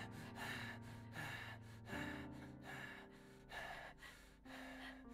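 Quick, gasping breaths from a distressed person, over a soft music score of held notes that change chord twice.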